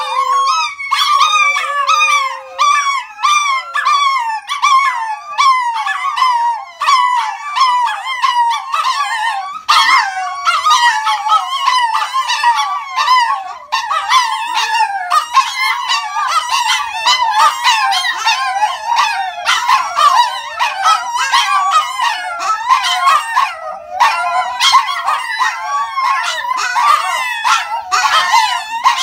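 Four Chihuahuas howling together in a continuous chorus of high, wavering, overlapping howls.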